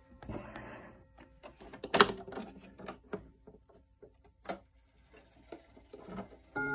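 Knocks, clicks and rustling from handling a wooden mantel clock while its hands are turned to the hour, with a sharp knock about two seconds in. Right at the end the clock's chime starts to ring.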